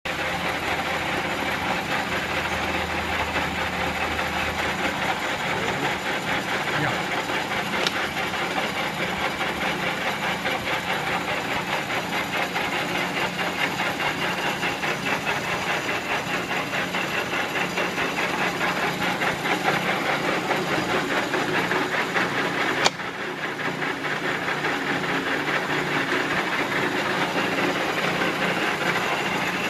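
A 15 HP Enterprise engine lathe running under power, giving a steady mechanical whir with a fine, fast rattle from its gearing. A sharp click comes about three-quarters of the way through, after which the sound is briefly a little quieter.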